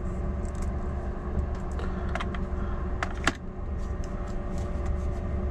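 A few sharp plastic clicks and taps as small wireless-microphone units and their charging case are handled, two clicks close together about three seconds in, over a steady low hum.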